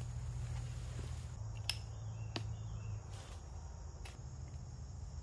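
Insects trilling steadily in a high, unbroken chorus over a low steady hum. A few light clicks come through as the folding stool and bag are handled.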